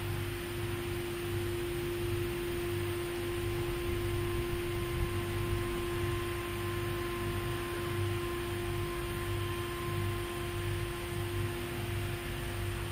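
Steady electrical machine hum from an idle automated sewing machine, with a constant mid-pitched tone, a low throb pulsing about twice a second, and hiss; no stitching is heard.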